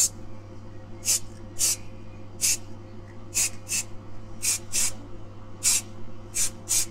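Aerosol spray-paint can hissing in about ten short bursts as paint is dusted onto a small part, over a steady low hum.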